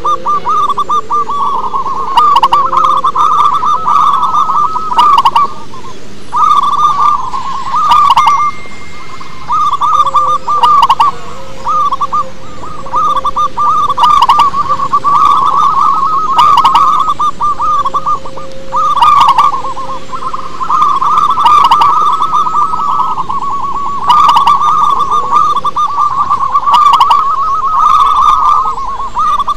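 Zebra dove (perkutut) cooing: rapid trilled, staccato coo phrases repeated one after another with hardly a pause.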